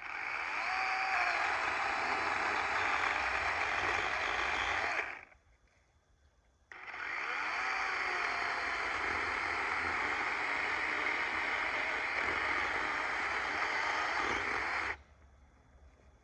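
DeWalt 20V battery chainsaw cutting into a hickory trunk in two long runs, about five seconds and then about eight seconds. Each run starts and stops abruptly as the trigger is pulled and released, with a short pause between them.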